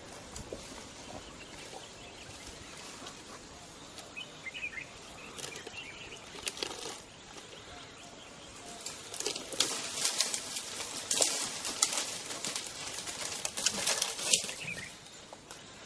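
An elephant feeding on a tree, pulling and shaking leafy branches with its trunk: rustling leaves and crackling, snapping twigs. It is sparse at first, then comes in loud bursts from about nine seconds in.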